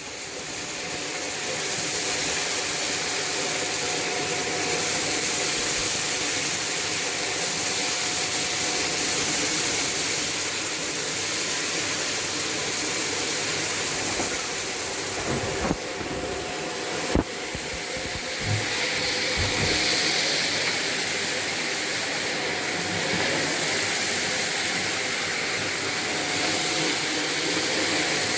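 Shark vacuum cleaner running on a hard floor with a loud, steady hissing whine, rising to full speed over the first couple of seconds. A couple of sharp clicks come a little past the middle, as debris is picked up.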